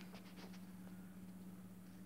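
Near silence: room tone with a faint steady low hum, and a few faint ticks in the first half second.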